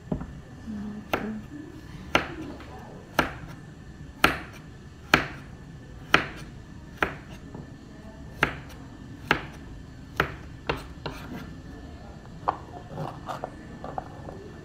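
Kitchen knife chopping on a plastic cutting board: slow, single sharp strokes about once a second, then a few lighter, quicker cuts near the end.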